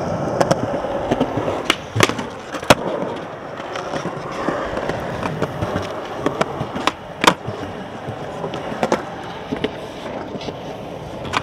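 Skateboard wheels rolling on smooth concrete, a steady rumble broken by several sharp clacks of the board against the concrete, the loudest about a third of the way in and again past the middle.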